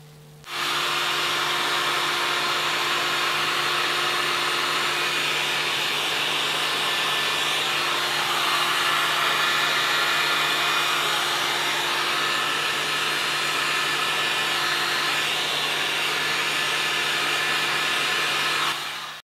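Hot air gun blowing steadily: a constant rush of air over a low motor hum. It switches on about half a second in and cuts off suddenly just before the end.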